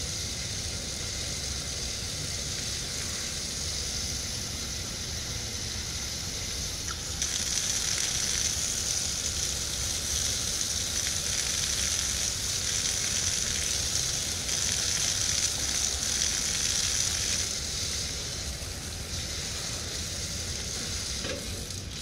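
Surf washing on a sandy beach: a steady hiss of foam over a low rumble, swelling louder about seven seconds in and easing off again after about eighteen seconds.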